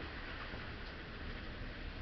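Steady outdoor background noise: an even hiss with a low, fluttering rumble and no distinct sounds standing out.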